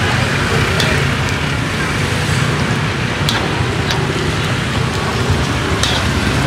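Pork offal (phá lấu) deep-frying in hot oil: a steady sizzle with a few sharp pops, over a low rumble of street traffic.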